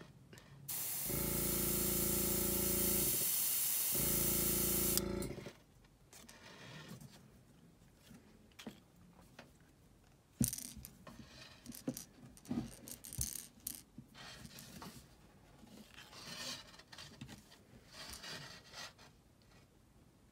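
Airbrush spraying a dot of paint through a stencil onto a crankbait: a steady hiss of air lasting about four seconds, with a low hum underneath. After that come quiet small clicks and rubbing as the metal helping-hands clamp and the stencil are handled, with one sharper click about ten seconds in.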